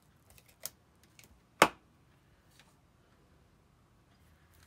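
A few light clicks and taps from handling thin glassine paper and a small glue applicator on a craft mat, with one sharper click about a second and a half in.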